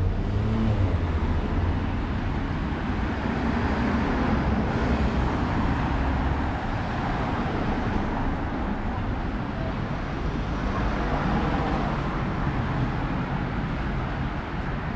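City street traffic on a rain-wet road: a steady hiss of passing vehicles, with a low engine rumble from a nearby vehicle through the first several seconds that then eases off.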